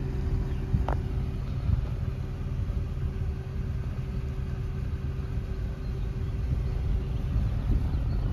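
2006 Acura TL's 3.2-litre VTEC V6 idling steadily, heard from behind the car at its twin exhaust tips, with one short tick about a second in.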